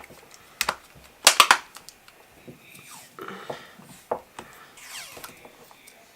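Plastic clicks, knocks and scraping as a MacBook charger's casing is handled and pressed shut, with a quick cluster of loud clicks about a second and a half in.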